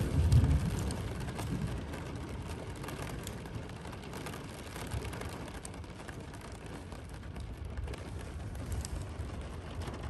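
Steady rain falling on a Toyota Prius, heard from inside the car as an even hiss, with a brief low rumble in the first second.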